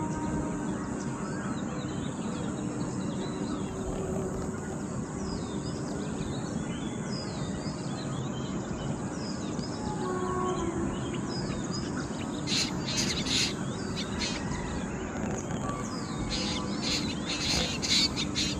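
Outdoor ambience: a steady background rumble with small birds chirping over it. Clusters of louder, sharper chirps come about two-thirds of the way through and again near the end.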